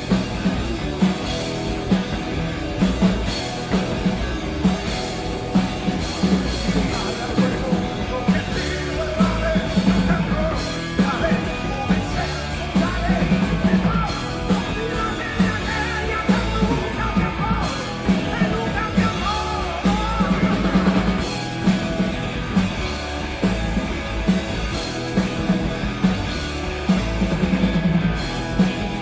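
Rock band playing live, with a steady drum-kit beat and a singer's voice over the band.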